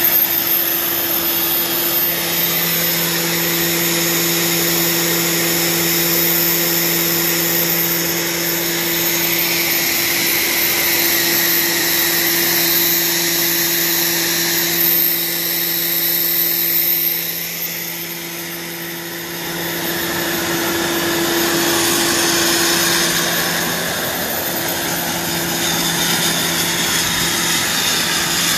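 Rolls-Royce Gem turboshaft engine running steadily on a test stand: a loud, even turbine whine and exhaust rush with steady low hum tones, dipping briefly in level a little past halfway.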